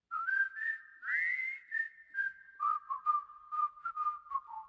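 A run of high whistled notes that glide and step between pitches, sometimes two at once, broken by short sharp clicks. It starts abruptly and fades out near the end.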